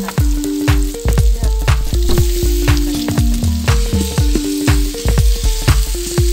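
Chopped tomatoes and onions frying and sizzling in oil in a large aluminium pot, stirred with a wooden spoon, with a steady hiss. Background music with a bass line and a steady beat plays alongside.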